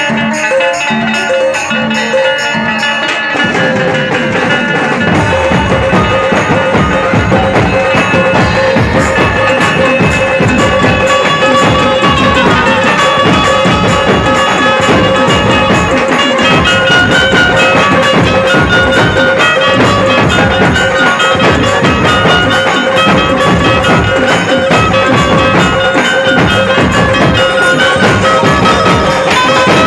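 Dhumal band playing loud folk music with drums, amplified through a large stack of loudspeakers. A sparse, even beat runs for the first few seconds, then the full band comes in with a steady pulse and melody.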